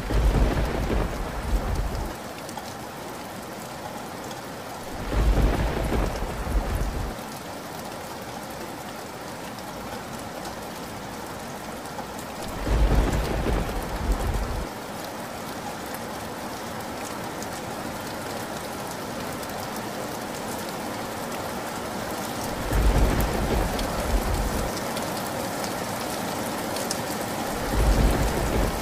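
Steady rain falling, with five loud rumbles of thunder, each lasting about two seconds, coming every five to ten seconds.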